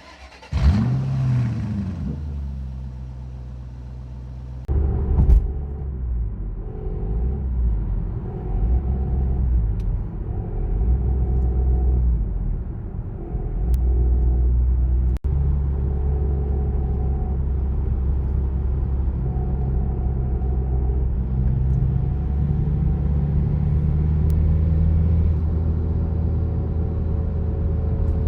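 Car engine starts, flares briefly and settles to idle, its note changing several times as the clutch is pressed and let out; the clutch release bearing makes noise when declutching. The bearing has largely disintegrated.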